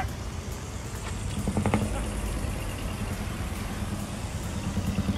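Large truck's engine running as a decorated truck drives slowly past, a steady low rumble that grows louder about a second and a half in.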